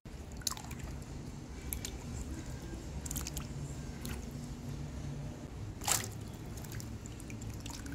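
Vegetables being washed by hand in a brass bowl of water: carrots rubbed and dipped, with water swishing and dripping. Just before six seconds a handful of green beans is dropped in with a loud splash.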